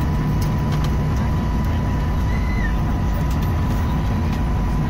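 Steady low rumble of an airliner's cabin during landing, engine and airflow noise, with a thin steady whine running through it.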